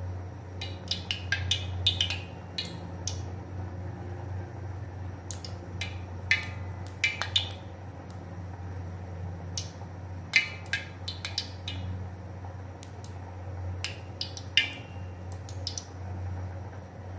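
Cooking oil heating in an aluminium wok, crackling and popping every so often as the sprinkled water droplets boil off, over a steady low hum. The oil is not yet hot enough for frying.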